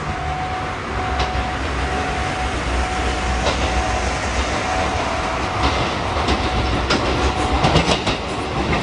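Tobu 8000 series electric commuter train approaching and running past. A low rumble builds to a rapid clicking of wheels over rail joints in the last few seconds as the front of the train reaches the camera.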